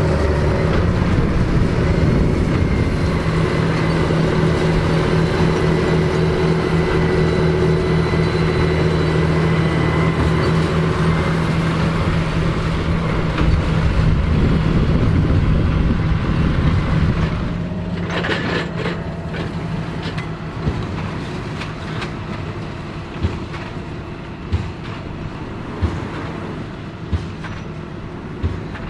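John Deere 8530 tractor's six-cylinder diesel engine running steadily under load while pulling a Krone BigPack large square baler. About two-thirds of the way through the engine sound drops, and sharp knocks come about every second and a half.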